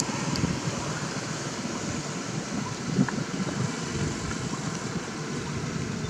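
Steady wind noise buffeting the microphone: an uneven low rumble with a hiss above it, and a short click about three seconds in.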